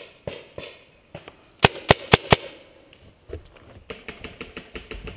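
Paintball marker firing: a quick string of four loud shots about a second and a half in, after a few fainter pops. From about three seconds in, a run of knocks, clicks and low thumps on the wooden tree-house deck as the player moves.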